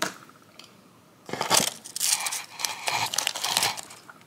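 Packaging crinkling and rustling as it is handled, for about two and a half seconds starting just over a second in, after a short knock at the very start.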